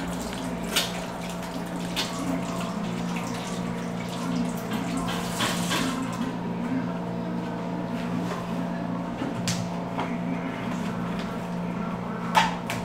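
Kitchen tap running into a stainless steel sink while hands are washed under it, with a steady low hum underneath and a few scattered clicks. Near the end a sharp click, the loudest sound, as the plastic tray of meat is handled.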